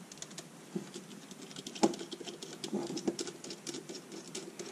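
A small hand screwdriver turning long machine bolts through plastic panels makes a run of light, scratchy clicks as the bit and threads work, with one louder click a little under two seconds in.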